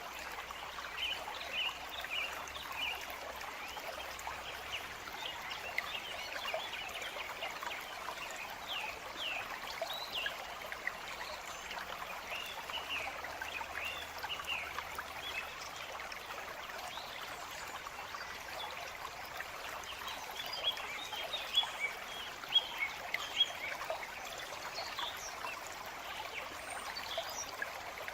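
Forest stream trickling steadily, with small birds chirping over it throughout; the chirps come thickest and loudest about three quarters of the way through.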